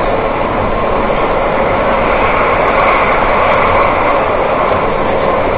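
Metro train heard from inside the car as it runs through a tunnel: a steady, loud rolling and running noise of wheels on rails, growing a little louder around the middle.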